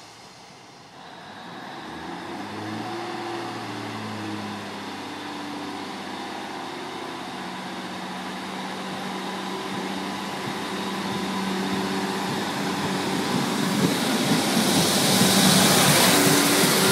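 Diesel multiple unit approaching on the platform road: a steady engine hum with a low pitch that comes in about two seconds in, then a wheel-on-rail rush that grows steadily louder as the train comes close and passes near the end.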